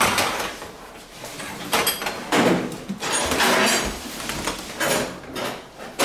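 Irregular scraping and knocking as a Termignoni carbon-fibre silencer and stainless exhaust pipes are handled and fitted together on a metal workbench.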